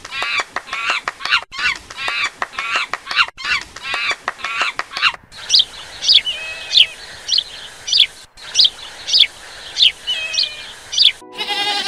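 A troop of monkeys giving repeated high, chattering calls. About five seconds in, a bird takes over with short, sharp calls that fall in pitch, about two a second.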